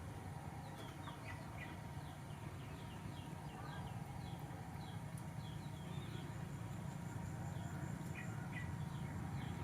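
Birds chirping repeatedly: short, high, falling chirps, about two or three a second, over a steady low rumble.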